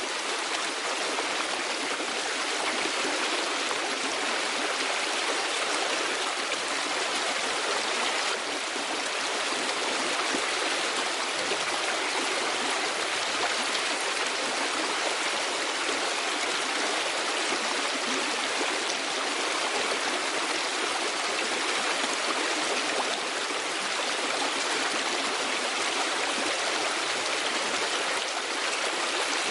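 A stream running steadily: an even, unbroken rush of flowing water.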